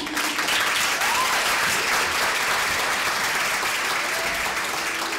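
Audience applauding steadily, many hands clapping at once, with a few short calls heard through the clapping.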